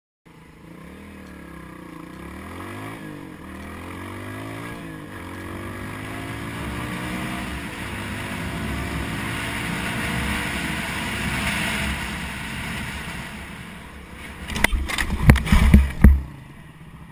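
Motorcycle engine accelerating hard through the gears, its pitch rising and then dropping back at each shift, with wind rush. Near the end comes a quick cluster of loud knocks and thumps.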